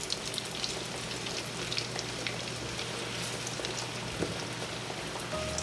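Chopped onion frying in melted butter in a nonstick pan: a steady sizzle with many small crackles and pops, the onion browning over medium heat.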